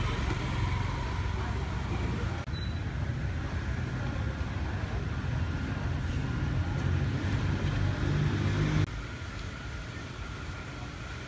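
Street traffic with motorbike engines running and passing, a steady low rumble that drops abruptly near the end.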